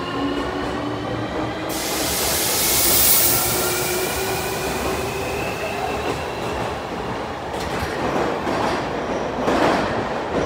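Fukuoka City Subway 305 series train pulling out of an underground station, its traction motors whining in a slowly rising pitch as it gathers speed. A loud hiss joins about two seconds in, and two louder rushes come near the end as the last cars pass.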